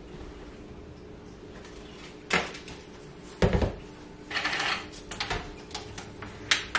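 Kitchen handling sounds: a bowl and utensils being moved and set down on the counter, a few sharp clicks and knocks with a heavier thump about three and a half seconds in and a brief rustle just after. A steady low hum runs underneath.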